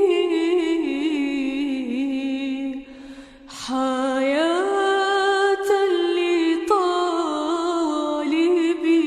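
A woman's solo voice singing a slow, mournful Passion Week hymn in long, ornamented melismatic notes. It breaks briefly for a breath about three seconds in, then resumes on a higher held note.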